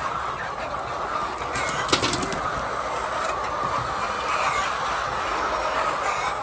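A flock of chickens in a poultry house: a steady din of many birds calling, with a short burst of sharp clicks and knocks about two seconds in.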